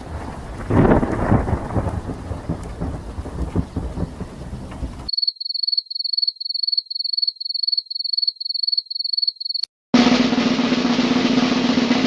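Thunder rolling, loudest about a second in, for about five seconds. Then a cricket chirping in a steady high-pitched rhythm of about three chirps a second. After a brief gap, a drumroll starts about ten seconds in.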